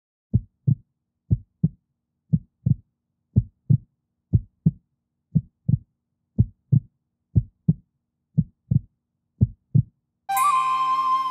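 Heartbeat sound effect: ten pairs of low lub-dub thumps, about one beat a second, with silence between them. Near the end, music with sustained tones comes in over it.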